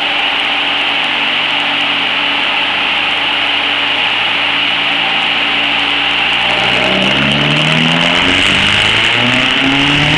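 Vauxhall Corsa engine running under load on a rolling road: the engine note holds steady, then climbs in pitch from about seven seconds in as the revs rise on a power run. A steady high rush runs underneath.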